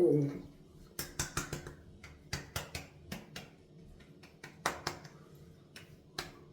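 A dozen or so sharp, irregular taps and clicks spread over about five seconds, after a short "oh" at the start.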